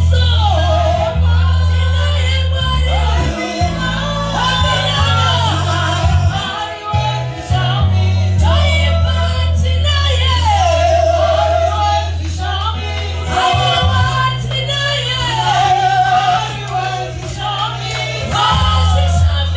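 Church choir and congregation singing a gospel worship song over sustained bass notes that change in steps.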